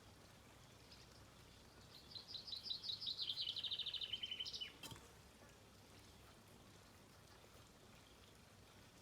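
A songbird sings one rapid trill of high notes lasting about two and a half seconds, dropping slightly in pitch toward the end, followed by a single faint click.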